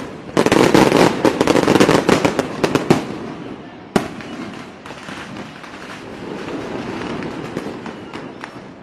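Fireworks going off: a dense run of crackling bangs for about three seconds, then a single sharp bang about four seconds in, followed by fainter crackling that dies away.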